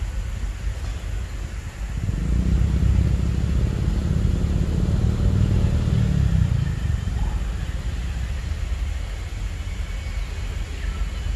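A low rumble swells about two seconds in and fades away after about seven seconds, over a steady low background.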